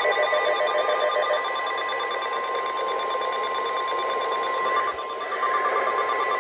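NOAA Weather Radio warning alarm tone: a steady single tone of about 1050 Hz, heard over radio static. It is the attention signal that comes before a spoken warning message, here a Flash Flood Warning.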